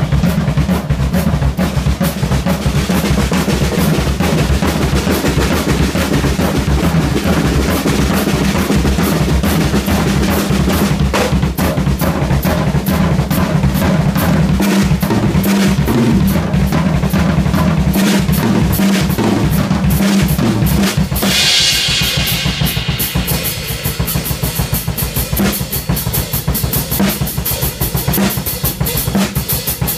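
Acoustic drum kit played solo: fast, dense fills on snare, toms and bass drum with cymbals ringing. About two-thirds of the way through a cymbal crash opens a lighter run of quick, evenly spaced strokes.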